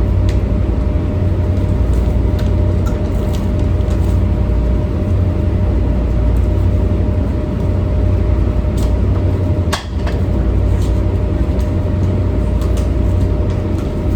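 Steady, loud low rumble of a boat's diesel engines running, with a faint steady hum over it. A few light ticks, and one sharp knock about ten seconds in.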